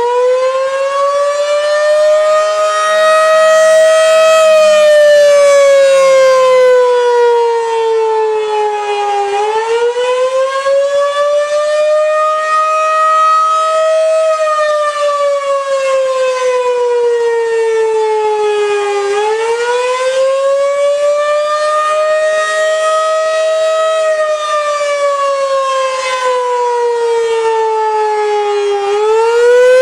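Federal Signal outdoor warning siren sounding a wailing attack signal: its pitch rises for about four seconds, then falls for about five, in slow repeated cycles, three times over.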